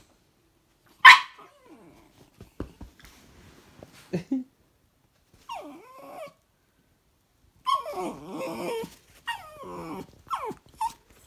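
Puppy barking, yipping and whining at his own reflection in a mirror, which he takes for another dog. One sharp bark comes about a second in, then a few quieter whines, then a busier run of yips, whines and growly barks in the last few seconds.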